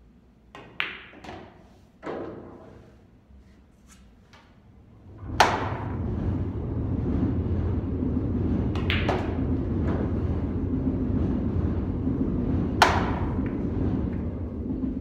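Pool balls clacking: sharp cue-tip strikes and ball-on-ball hits as object balls are shot into the pockets, the loudest clacks about a third of the way in and near the end. A steady low rumble starts with the loud clack about a third of the way in and runs under the later shots.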